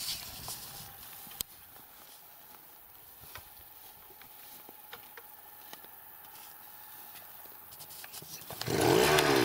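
Scattered light knocks and one sharp click of digging work, then near the end a petrol-powered earth auger's small engine revs up and back down for about a second and a half.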